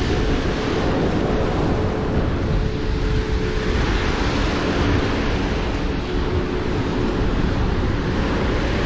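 Wind buffeting the microphone over the steady wash of sea surf, with a faint hum in the background.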